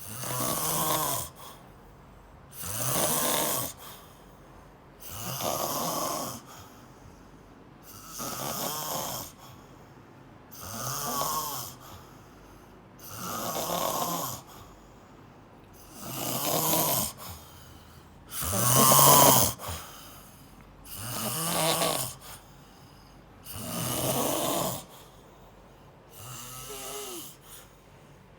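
A person snoring in a slow, regular rhythm: eleven snores, each about a second long, coming about every two and a half seconds with quiet breaths between. The loudest snore is about two-thirds of the way through, and the last is fainter.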